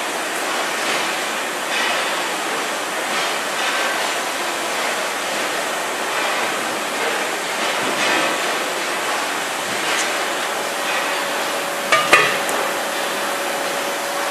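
Steady din of concrete roof tile production machinery, with light metallic clattering every second or so as steel ridge-tile moulds are handled. Two sharp knocks come near the end.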